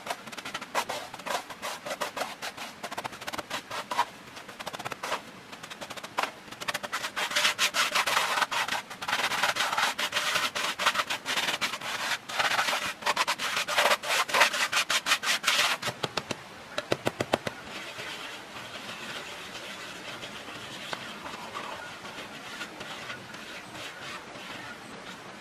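Gritty scraping and crackling of hands digging in soil, a dense, irregular run of rapid scrapes that stops about sixteen seconds in. A few sharp clicks follow, then a faint steady hiss.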